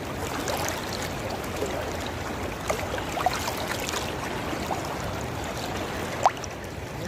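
Shallow stream running over pebbles: a steady rush of water with now and then a short bubbling plop, the loudest one near the end.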